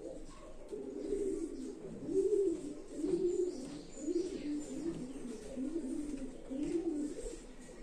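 Pigeons cooing again and again, a steady run of low, rolling coos one after another.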